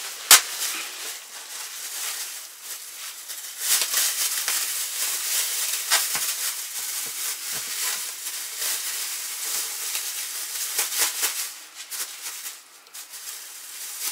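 Thin plastic bags rustling and crinkling in irregular bursts as gloved hands pack pieces of salted pork fat into them. There is a single sharp click about a third of a second in.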